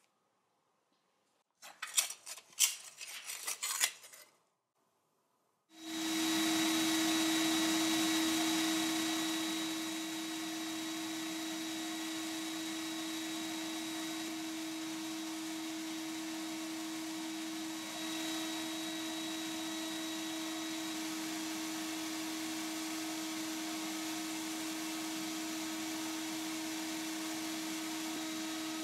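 A few seconds of small tin parts clinking as they are handled, then a sandblasting cabinet starts about six seconds in. A steady blasting hiss with a constant hum runs under it as the nozzle strips rust and old paint from the toy's tin airplane pieces.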